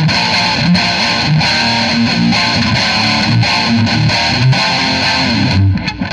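Distorted electric guitar, an Epiphone Les Paul Special played through a small Marshall MG10CD practice amp, playing a riff of changing notes and strums, with a brief drop just before the end.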